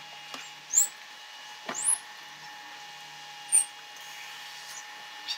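Potato fries deep-frying in hot oil in a pan, a steady sizzle, over a steady high whine from an induction cooktop running at 2000. A few short, sharp, high chirps stand out above it.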